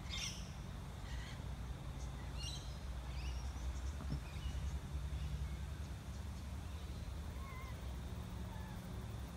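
Outdoor ambience of scattered short bird calls and chirps, a few seconds apart, over a low steady rumble.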